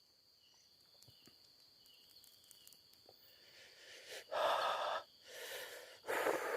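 A person breathing heavily close to the microphone: after a near-silent stretch, three breathy exhales come from about four seconds in, the first and last the strongest.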